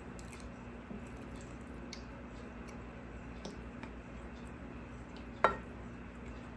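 Quiet eating sounds: a spoon scooping soft steamed lolo buns soaked in coconut milk, with faint squishes and light clicks, then one sharp knock about five and a half seconds in.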